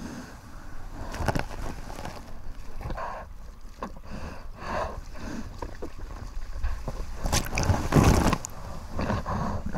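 Sea water splashing and sloshing around a surfer's action camera held at the surface among small waves. Near the end a louder rush of foaming whitewater comes as the camera is swamped.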